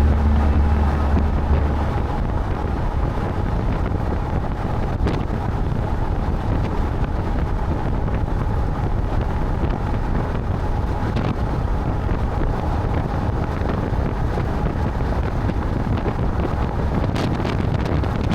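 Wind rushing over the microphone from a moving vehicle: a steady, loud rush heavy in the low end.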